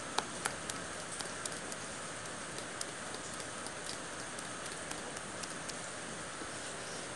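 Cake batter being stirred in a bowl: light, irregular clicks of the spoon or whisk against the bowl, a few sharper ones at the start, over a steady hiss.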